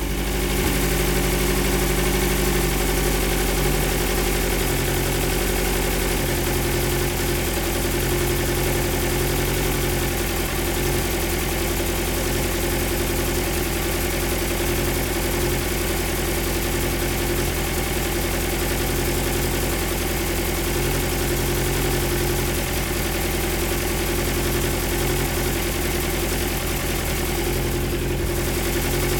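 Tuned Ford Pinto 2.2-litre SOHC inline-four engine with twin Dellorto DHLA carburettors idling steadily.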